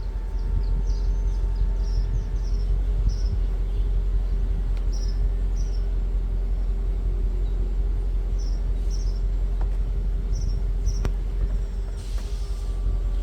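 Mercedes CLK500 convertible's electro-hydraulic soft-top pump running with a steady hum and a constant whine as the top cycles, tested after the broken top microswitch was replaced. Short high chirps repeat over it, and a brief hiss comes near the end.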